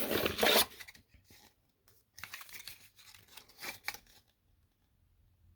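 Packaging being torn open and crinkled by hand: a loud rip at the start, then a couple of seconds of softer crinkling that stops about four seconds in.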